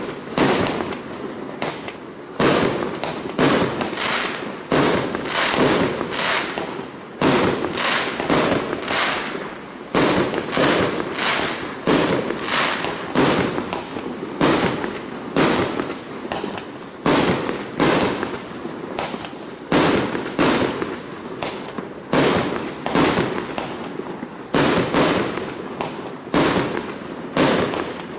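A 1-inch, 80-shot consumer firework cake firing shot after shot, a little more than one sharp report a second, each fading quickly before the next.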